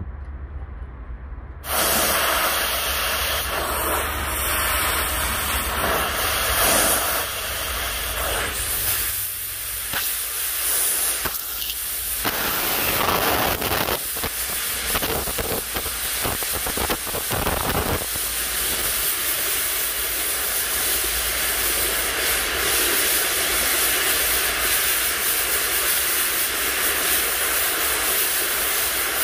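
Metal-cutting torch cutting through steel: it starts hissing suddenly about two seconds in, breaks up and flickers for a while in the middle, then holds steady, with a low hum underneath.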